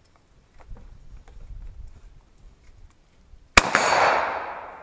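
A single shot from an AK-pattern rifle about three and a half seconds in, a sharp crack followed by a long echo dying away over open ground. Before it there is only a faint low rumble.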